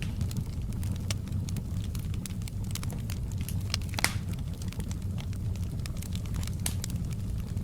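Wood fire in a fireplace crackling: scattered sharp pops and snaps over a steady low rumble of the burning, with one louder pop about four seconds in.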